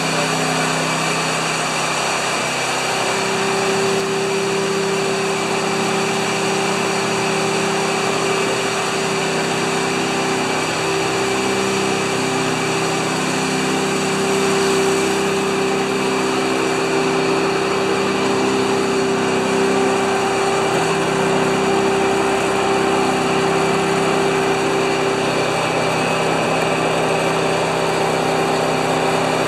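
John Deere LX178 lawn tractor's liquid-cooled twin-cylinder engine running steadily as the tractor drives, with a steady higher-pitched tone joining about three seconds in.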